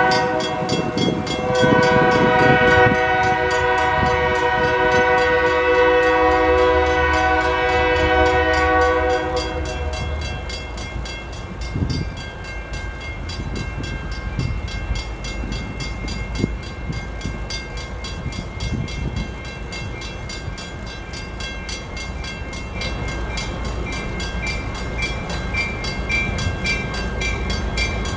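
Diesel locomotive air horn sounding a multi-note chord for roughly the first nine seconds, then cutting off. After it, the low steady rumble of the diesel locomotives, with a faint crossing-signal bell ringing about twice a second near the end.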